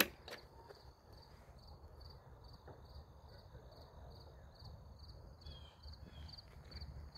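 Faint crickets chirping in an even rhythm, about two chirps a second, with a thin steady trill above them, over a low rumble. A single sharp click at the very start.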